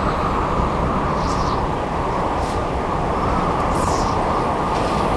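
Steady low rumbling outdoor noise, with faint brief hisses about one, two and a half, and four seconds in.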